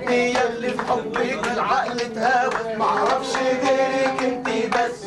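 A group of voices singing together with rhythmic hand-clapping, over a steady held tone.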